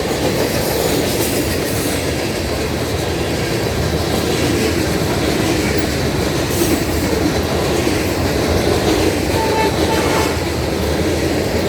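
Freight train cars rolling steadily past, a continuous rumble of wheels on rail.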